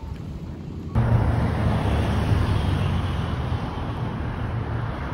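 City road traffic: cars driving along a wide multi-lane street, a steady low-pitched noise that comes in suddenly about a second in and then slowly eases off.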